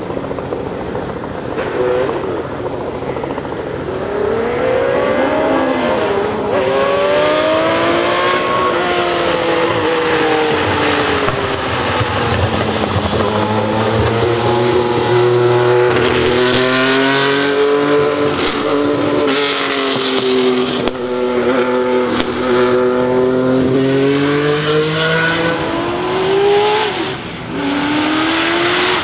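Race car engine of a red 1960s Ferrari sports-prototype accelerating hard from a standing start. It revs up through the gears in several rising sweeps, then holds high revs with the pitch wavering as it runs past. Near the end a second race car's engine revs up as it pulls away.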